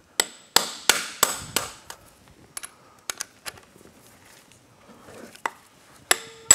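Hammer striking a steel socket extension, driving an oversize 7/32-inch bit into a rounded bolt head so its edges cut in and grip. About six quick blows in the first two seconds, a few lighter metal clicks, then two more hard blows near the end with a short metallic ring.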